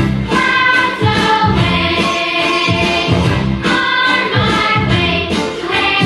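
Music with a group of voices singing over a repeating bass line.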